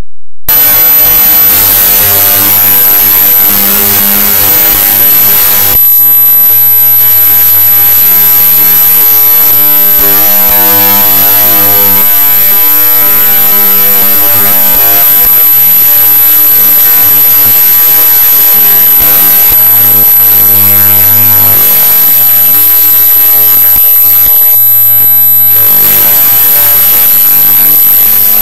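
Loud, steady electronic drone of hum and hiss from a film soundtrack, cutting in abruptly at full volume, with a thin high whine held throughout.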